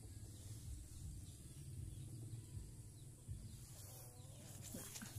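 Quiet outdoor ambience with a low steady rumble and no clear distinct event.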